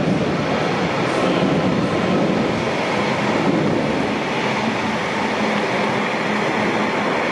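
Passenger train running at the station: a steady, loud mechanical rumble with a low hum throughout.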